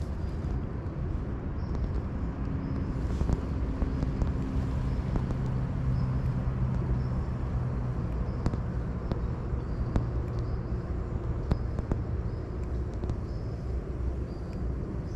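Spinning reel cranked steadily during a lure retrieve, with small clicks, over a low steady rumble and a faint hum through the middle.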